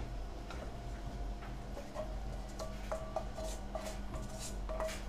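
A spatula stirring and scraping food in a pan on an induction hob, with light clicks and short ringing tones from about two seconds in, over a steady low hum.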